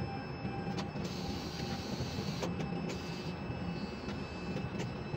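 Ship-to-shore quay crane's machinery running steadily, heard from the operator's cab as the spreader is lowered on its hoist ropes: a constant low hum with a few steady tones above it and occasional faint clicks.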